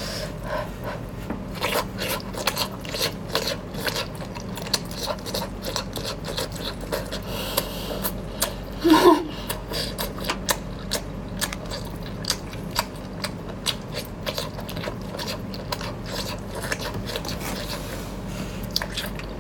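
Close-miked chewing of tentacle suckers dipped in chili oil: a steady run of small, wet mouth clicks and smacks over a steady low hum. A short vocal sound comes about nine seconds in.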